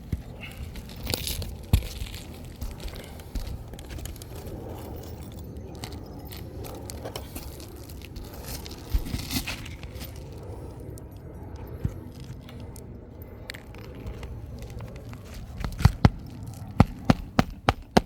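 Asphalt roof shingles being worked loose by hand, giving scattered crackling and tearing noises and sharp clicks, then a quick run of about eight sharp clicks near the end.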